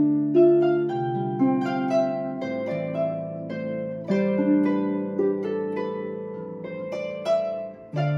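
Celtic harp playing a slow original tune: plucked notes ringing on and overlapping, with low bass notes held beneath a moving melody.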